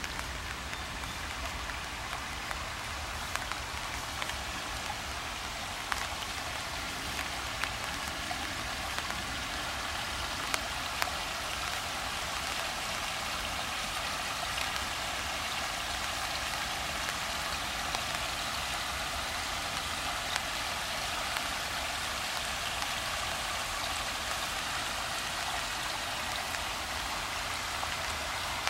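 Steady rain falling on a creek's still water and the leafy trees around it: a continuous hiss with scattered louder drops ticking close by.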